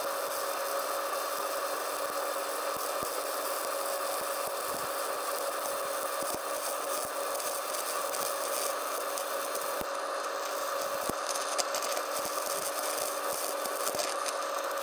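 Stick welding arc burning a 1/4-inch 7018 electrode: a steady frying hiss with a few faint crackles over a constant hum.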